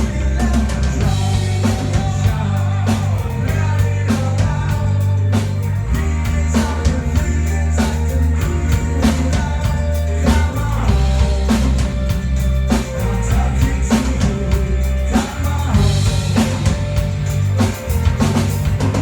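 A band playing live in rehearsal: a drum kit keeps a steady beat over a bass line that shifts every few seconds, with other instruments on top.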